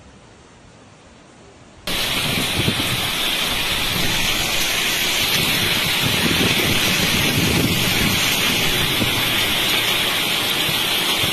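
Heavy torrential rain pouring down in a loud, steady hiss. It starts abruptly about two seconds in, after a short, quieter stretch of faint low noise.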